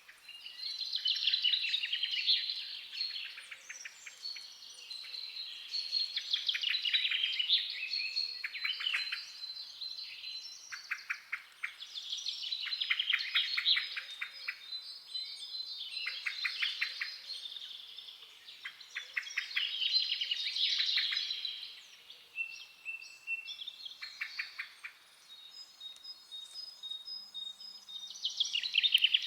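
Wild songbirds singing: overlapping chirps, whistled notes and rapid trills, with phrases rising and falling in waves every few seconds.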